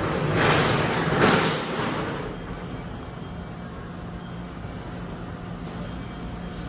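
Flatbed platform cart rolling on its casters across a concrete floor, loud for the first two seconds and then fading to a steady background hum.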